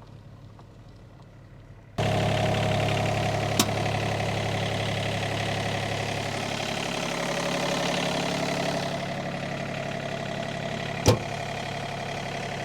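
Sany mini excavator's diesel engine idling steadily while it warms up, after a jump start. Two sharp knocks cut through it, one a few seconds in and a louder one near the end.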